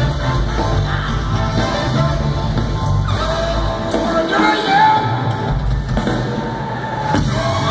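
Live band music with a singer, heard from among the audience in a large pavilion.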